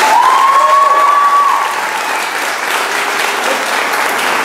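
Audience applauding steadily in a large hall, with a voice calling out briefly in the first second or so.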